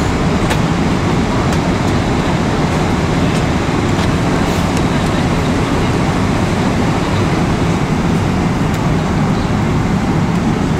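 Steady in-flight cabin noise of a Boeing 777-300ER: a loud, even rushing drone of engines and airflow, with a few faint clicks.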